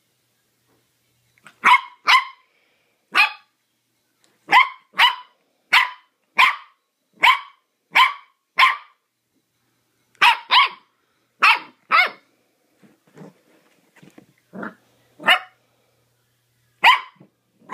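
Miniature dachshund puppy barking in play: a long run of sharp, high-pitched yaps, about one or two a second with short pauses, and a few softer, lower sounds about thirteen seconds in.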